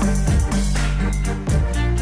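Background music with a strong bass line and a steady beat.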